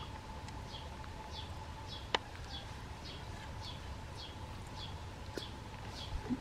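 A bird repeating a short, high, falling chirp very evenly, nearly twice a second, over a faint steady hum, with one sharp click about two seconds in.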